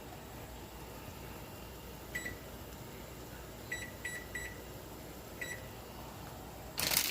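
Five short, high electronic beeps, spaced irregularly like a kitchen appliance's keypad being pressed, then a loud crinkling of packaging near the end.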